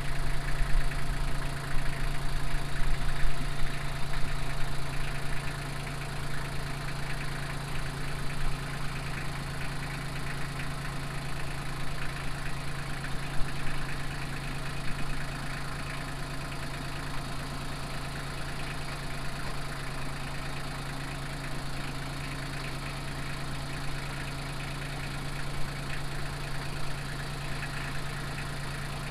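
Small front-loader tractor's engine running steadily at a fairly low, even speed, a little louder for the first few seconds and then settling.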